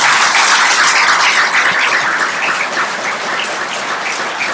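Audience applauding, a dense clapping that is loudest at the start and eases off a little.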